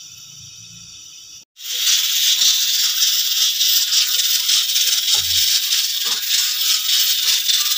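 Aluminium pressure cooker on a gas burner letting off steam under its weight valve: a loud steady hiss with a fast rattle, which starts abruptly about a second and a half in after a quieter hiss. The sound means the cooker has come up to pressure.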